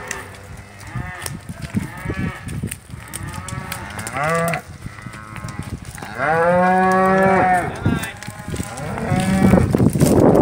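Cattle mooing: several calls, the longest and loudest about six seconds in, lasting about a second and a half. Scattered cracks and steps run underneath.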